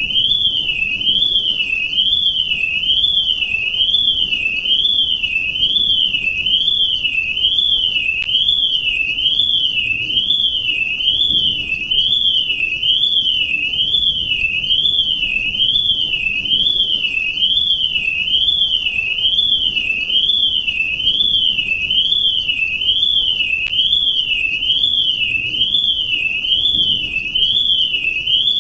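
Electronic alarm sounding continuously: a loud, high-pitched tone that sweeps smoothly up and down in pitch about once a second, a steady wailing warble with no breaks.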